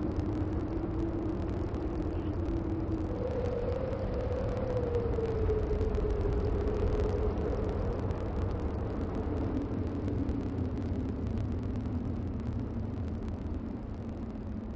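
Low, steady rumbling drone from the film's soundtrack, with a single wavering hum that drifts slowly up and then down in pitch. It fades gradually toward the end.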